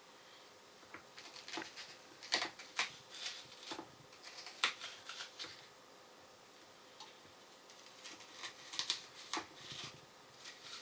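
Crisp, irregular clicks and scrapes of a red onion being handled and worked by hand: peeled and hollowed out. They come in two clusters, with a quiet pause of a few seconds between them.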